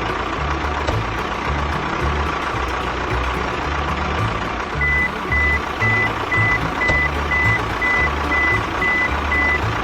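Vehicle reversing alarm beeping about twice a second, starting about five seconds in, over a steady truck engine and background music with a steady bass beat.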